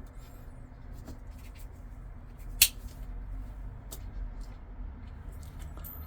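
Folding knives being handled, with a sharp click about two and a half seconds in and a few fainter clicks, over a low steady hum.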